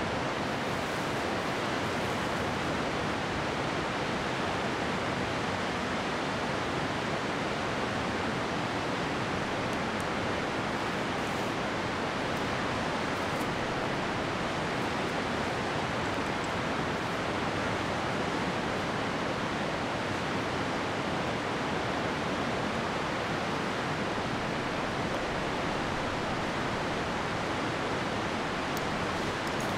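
Steady rushing of white-water river rapids, an even roar of water.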